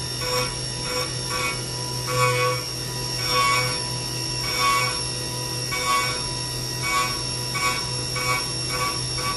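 Haas CNC mill's solid carbide end mill roughing 12L14 steel: a steady machine whine under repeated squealing cutting bursts, about once or twice a second, as the cutter works around the part's profile.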